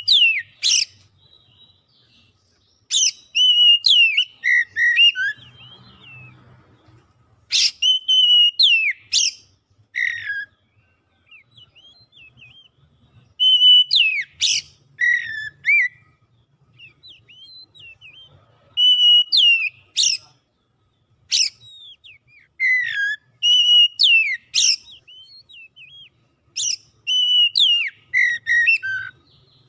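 Oriental magpie-robin singing: about seven loud phrases of clear whistled notes, some held on one pitch and some sliding downward, each phrase a second or two long with short pauses between.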